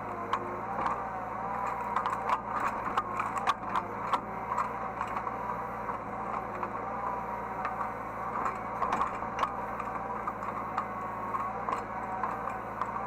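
Hydraulic excavator heard from the operator's seat: the diesel engine running steadily under a hydraulic whine that rises and falls as the controls are worked, with frequent clicks and rattles throughout.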